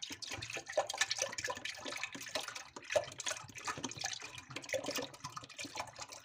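Fresh milk pouring from a carton into a stainless steel pot, a continuous splashing stream into the milk already in the pot.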